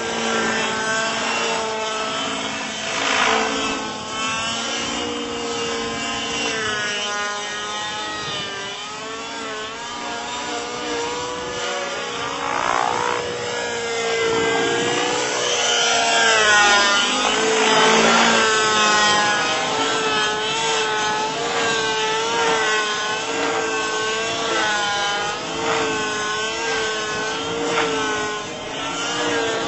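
Radio-controlled model helicopter's engine and rotors running hard through aerobatic manoeuvres, the pitch rising and falling again and again as the engine revs up and down.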